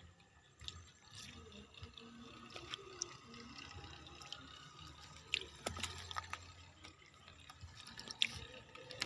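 Faint, scattered water drips and small splashes, coming irregularly with a few sharper ticks among them.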